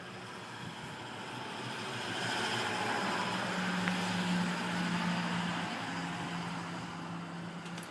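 A passing vehicle: a steady low engine or tyre sound that swells over a couple of seconds, peaks about halfway through, then slowly fades.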